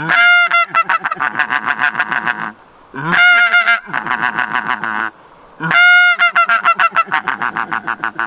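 Mouth-blown greylag goose call imitating geese, blown three times: each time a long high-pitched honk, then a quick run of short, deeper murmur notes at about nine a second.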